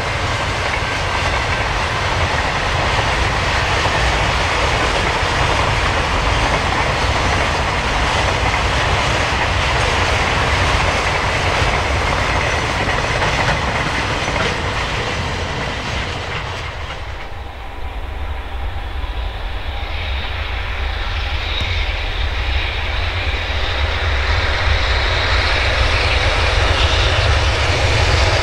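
Container freight wagons (JR Freight Koki flat cars) rolling past close by, wheels clattering over the rail joints. About two-thirds of the way through the sound changes to an approaching EH500 electric locomotive: a rumble with steady tones over it, growing louder as it comes alongside.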